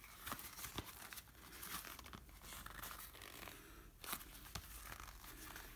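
Faint rustling and crinkling as a soft black lens pouch is handled and turned over in the hands, with a few small clicks.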